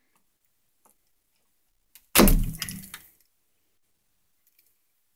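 A single clatter about two seconds in that dies away within a second, from hand tools knocking against the new wall switch and its wiring as a wire is hooked onto a terminal.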